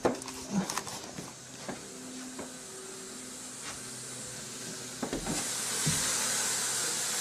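A steady hiss comes in about five seconds in and grows louder, with a few faint knocks from handling before it.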